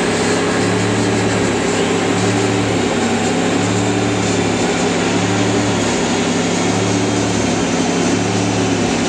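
Lamborghini engine running on a chassis dynamometer, holding a steady engine speed with only slight wavering in pitch.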